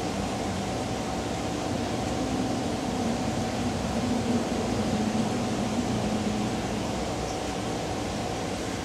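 Steady mechanical hum with an even hiss.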